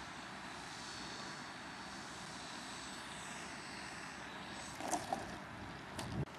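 Engine and propeller of a radio-controlled Cessna 182 scale model airplane in flight, its faint high engine note sweeping up and down as it passes. Near the end come a few sharp knocks close to the microphone.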